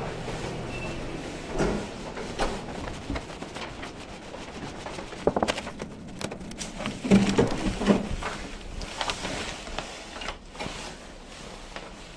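A hotel room door being unlocked and opened: a run of clicks and knocks from the lock and handle, then heavier thumps as the door swings open, loudest about seven to eight seconds in, with shuffling steps before and after.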